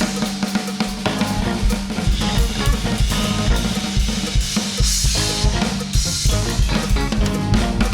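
Acoustic drum kit played solo in a fast improvisation: dense, rapid strokes on snare and toms with bass drum hits and rimshots, a busy unbroken stream of strikes.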